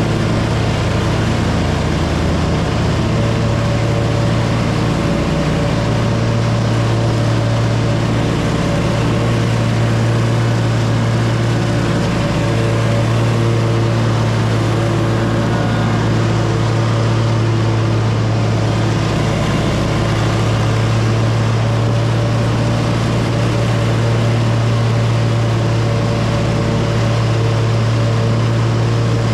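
Lawn mower engine running steadily at a constant speed, a loud, even hum.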